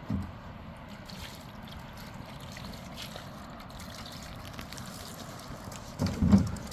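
Steady trickle of running water, with a dull thump just after the start and a louder cluster of low thumps about six seconds in.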